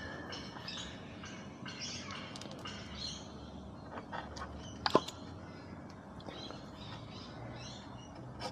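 Birds chirping and calling in short, repeated notes, with one sharp click about five seconds in.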